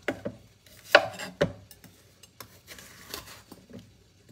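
Chef's knife slicing through a bitter melon onto a wooden cutting board: a few sharp knocks of the blade on the board, the loudest two about a second apart near the start, then fainter taps.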